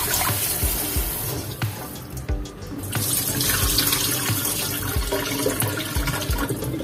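Tap water running into a stainless steel bowl as raw duck pieces are rinsed by hand over a steel sink. The water sound drops briefly about two seconds in, then splashes again as the bowl is tipped and the rinse water poured out into the sink.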